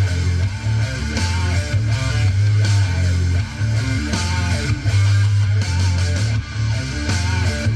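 Guitar-driven rock music with a strong bass line played loud through a Pulse SP403 portable amplified party speaker, picked up by a Samsung Galaxy S22 Ultra phone's microphone.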